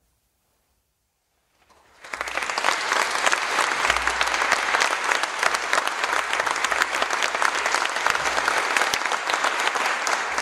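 Near silence for about two seconds after the last note of the music dies away, then a live audience breaks into dense, steady applause.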